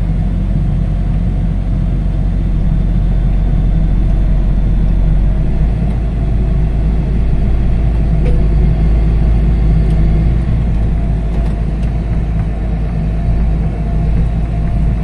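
Tractor diesel engine running steadily while the tractor creeps slowly forward.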